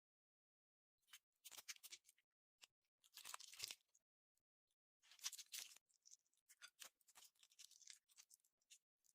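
Slime being squeezed and worked by hand, making quiet crackly clicking sounds in four bursts.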